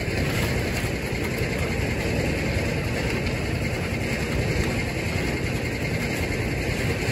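An engine idling steadily, a constant running noise with no change in pitch.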